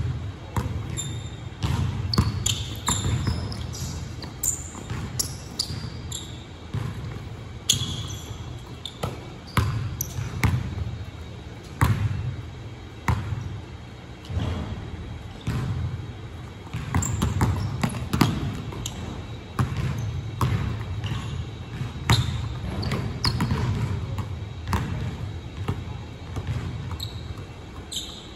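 Basketball bouncing on a hardwood gym floor in irregular runs of dribbles, with a sharp bounce every second or so. Short, high sneaker squeaks come now and then.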